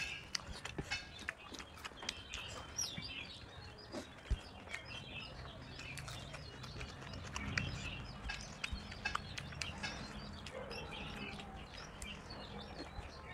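Small birds chirping in the background, over scattered short clicks and mouth sounds of people eating with their hands.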